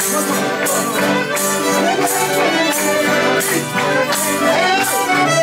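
Live traditional Azorean folk music led by an accordion holding steady chords, over a jingling percussion beat.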